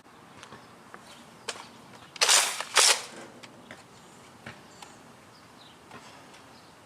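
Nerf Rival Helios blaster being handled: two loud clacks about half a second apart, with faint clicks around them.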